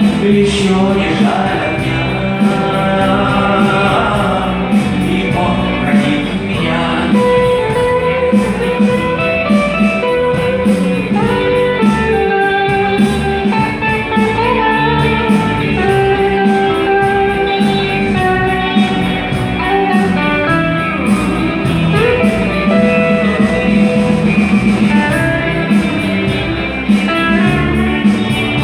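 Instrumental break of a rock song: a guitar plays a melodic lead line over a steady backing accompaniment.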